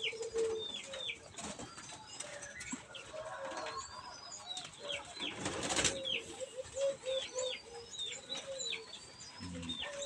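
Caged zebra doves cooing in a run of short notes, with small birds chirping in short, high, falling calls repeated throughout. A brief burst of wing flapping and rustling comes about five and a half seconds in, as a young dove is caught by hand.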